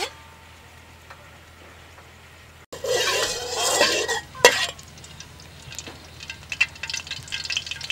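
Metal spatula scraping and swirling oil around a wok for about a second and a half, starting about three seconds in, with a clink of metal on the pan. Then light crackling and ticking of oil heating in the wok.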